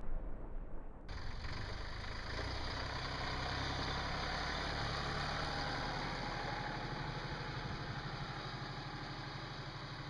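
Tractor engine running steadily, the steady hum of a machine at idle-like speed, with a higher hiss coming in suddenly about a second in.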